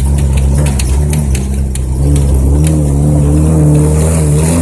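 Off-road vehicle engine running under load; its pitch rises about two seconds in and then holds. Sharp rattling clicks come through it over the rough track.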